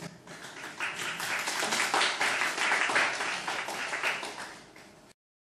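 Audience applauding: many hand claps swell in about a second in, then fade away and cut off suddenly near the end.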